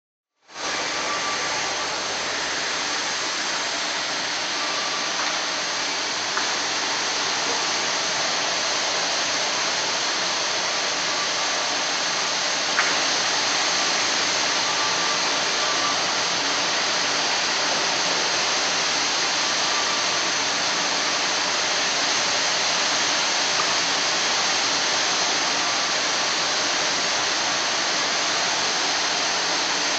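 Steady, even noise of an industrial band saw running in a sawmill, with a couple of faint clicks.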